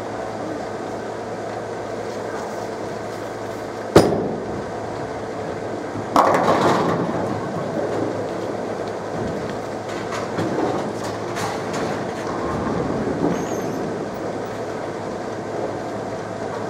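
A Motiv Carbide Tank bowling ball lands on the lane with a sharp thud about four seconds in, rolls down the lane, and hits the pins about two seconds later. The pins crash and clatter for about a second over the steady hum of the bowling alley.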